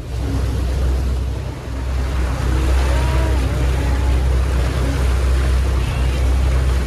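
Ferry's engine and propeller running under way with a steady low rumble, the churning wake hissing and wind blowing across the microphone.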